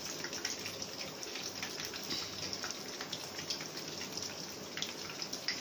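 Beef jali kababs shallow-frying in hot oil in a pan, the oil sizzling steadily with many small crackles.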